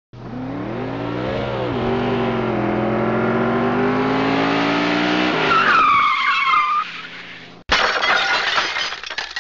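Car crash sound effect: an engine revving for about five seconds, its pitch rising and falling, then tyres screeching for about a second. After a sudden brief drop-out comes a crash with clattering debris.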